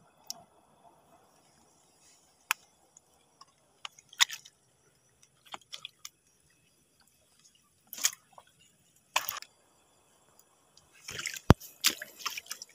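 Footsteps on wet rocky shore: scattered sharp wet clicks and squelches a second or two apart, bunching into a quick run near the end.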